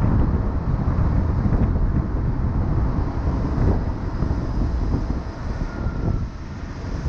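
Road noise of a car driving on a highway: a steady low rumble of tyres and traffic that grows quieter about six seconds in.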